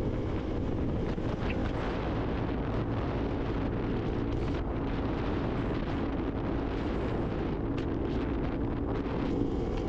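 KTM sport bike's single-cylinder engine running steadily at highway cruising speed, about 85 km/h in sixth gear, with wind rushing over the microphone.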